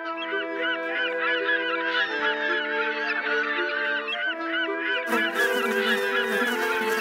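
A flock of birds calling, a dense chatter of many overlapping short rising-and-falling calls, over sustained music chords. A rushing hiss joins in about five seconds in.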